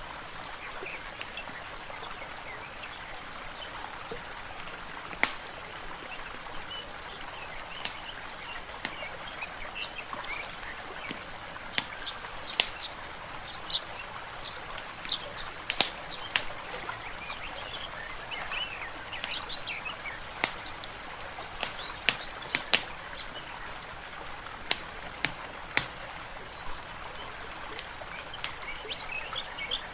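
Layered fireplace and forest-lake ambience: a fire crackling with irregular sharp pops over a steady water hiss, with birds chirping throughout.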